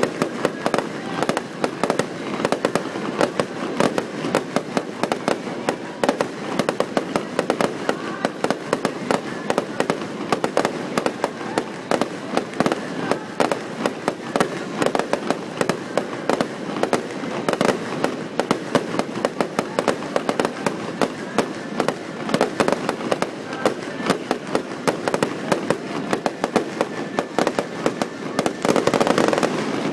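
Fireworks display: a dense, continuous barrage of shell bursts and bangs, many a second, building to a louder flurry near the end. Heard through a phone microphone, with little bass.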